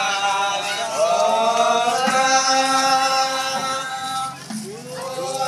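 A group of men chanting together in long drawn-out notes, each phrase sliding up into its held pitch, with a short break about four seconds in before the next phrase begins.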